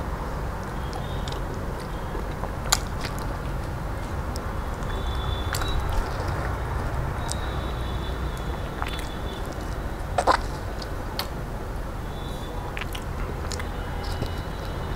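A person eating mango pulp by hand: scattered short mouth clicks, a sharper one about ten seconds in, over a steady low hum.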